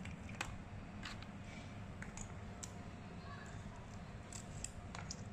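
Kitchen scissors snipping through a raw crab's shell and legs: a few sharp clicks, several seconds apart, over a faint low background hum.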